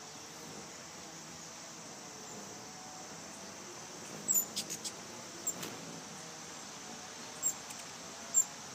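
Ruby-throated hummingbirds giving sharp, high squeaky chip calls as they chase each other in a territorial fight: a quick run of about five chips around four seconds in, then single chips later, over a steady hiss.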